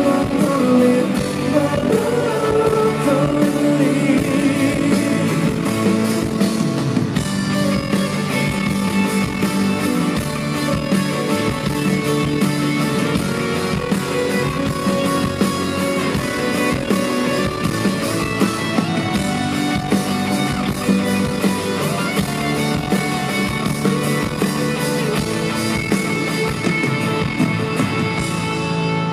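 Live rock song played through a concert PA, with an acoustic guitar strummed steadily and singing at times.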